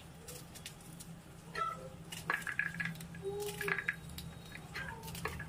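Spring onions being sliced by hand with a small knife over a steel plate: a run of crisp clicks and snips, busiest in the middle, with a few short faint pitched calls among them and a low steady hum underneath.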